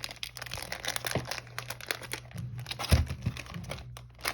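Wrapping around a new 6x6 puzzle cube crinkling and tearing as it is pulled open by hand, a quick run of crackles, with a dull thump about three seconds in.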